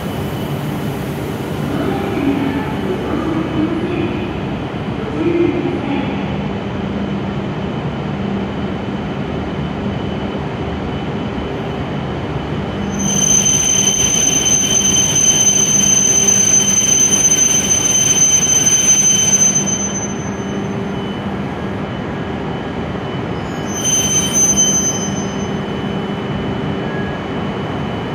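Hokuriku Shinkansen E7 series trainset rolling slowly into a platform with a steady rumble. About halfway through it gives a high-pitched squeal for several seconds as it brakes, then a brief second squeal shortly before it stops.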